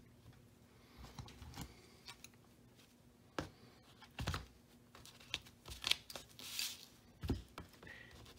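Light handling noise: scattered soft knocks and clicks as leaded stained-glass panels are lifted and set down against wooden jig strips, with a brief rustle a little past the middle.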